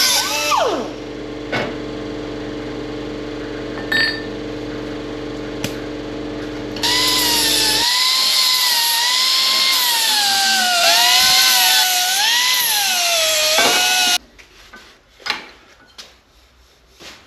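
Shop power tool working steel bar stock: a motor winds down in the first second, a machine hums steadily, then the tool runs loud for about seven seconds with a whine that wavers up and down under load before stopping abruptly, leaving a few light clicks and knocks.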